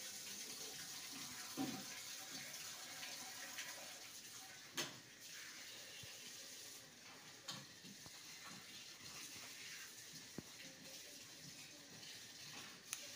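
Faint, steady hiss of running tap water, broken by four sharp clicks spread across the stretch, the first the loudest.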